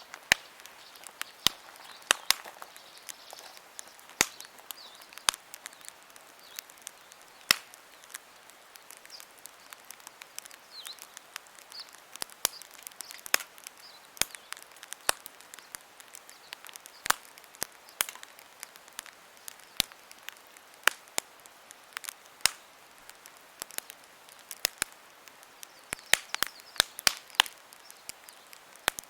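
Wood campfire crackling: irregular sharp pops and snaps over a faint steady hiss, coming thickest near the end.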